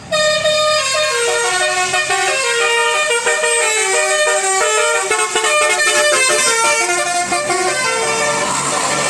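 Bus telolet horn playing a fast tune of many short notes at changing pitches, starting suddenly.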